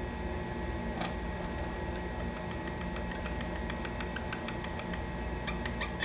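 Rose-ringed parakeet pecking and nibbling at a plastic toy bird: one sharp click about a second in, then a quick, irregular series of small clicks, over a steady background hum.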